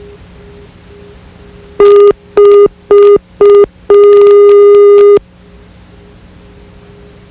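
Electronic beep tone: four short beeps about half a second apart, then one long beep of just over a second, all on the same mid-pitched tone, loud, over a steady background of tape hiss and hum.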